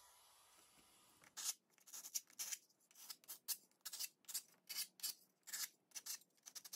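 Hand sanding: a wooden sanding stick faced with sandpaper rubbed back and forth over a wooden edging strip, in quick scratchy strokes, several a second, starting about a second and a half in.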